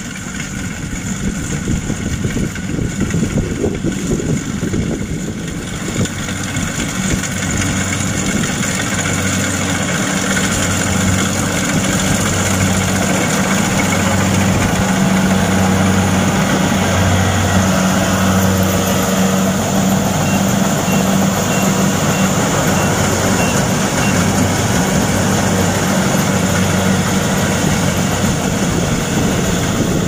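Kubota DC-70 PLUS combine harvester's diesel engine running steadily while it cuts and threshes rice. It grows louder over the first several seconds, then holds a steady low drone over a dense mechanical noise.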